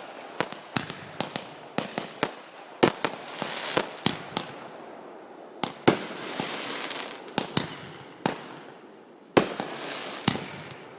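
Fireworks going off: an irregular volley of sharp bangs, many in quick succession, with stretches of crackling hiss between them.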